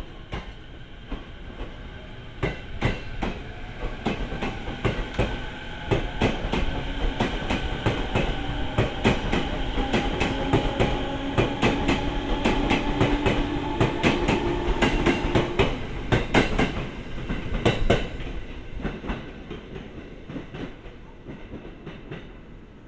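JR East 209 series electric multiple unit pulling out, its wheels clicking over the rail joints in a quickening rhythm as the cars go past. Through the middle the traction motors whine, the pitch creeping up, and the sound dies away near the end as the train moves off.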